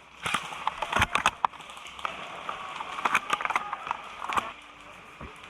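Scattered sharp clicks and snaps of airsoft guns firing in short strings, over a steady hiss.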